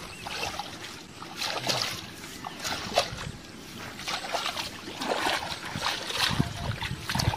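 Shallow muddy water sloshing and splashing in irregular bursts as bare feet and hands wade through a narrow ditch.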